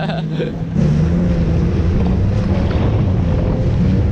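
Jet ski engine running under way, a steady low drone mixed with water spray and wind buffeting the microphone; it gets louder a little under a second in.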